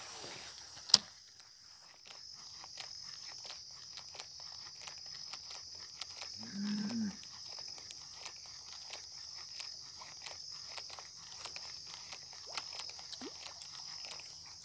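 A cow moos once, briefly, about halfway through, over a steady high insect buzz and light scattered clicking. A single sharp click comes about a second in.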